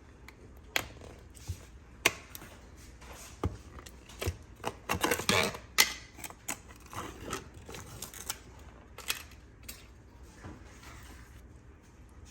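Irregular light clicks and taps, busiest around five to six seconds in.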